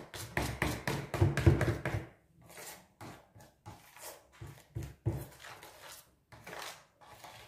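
Spoon beating thick flour batter by hand in a mixing bowl: a quick run of knocks and scrapes for about two seconds, then slower, softer strokes.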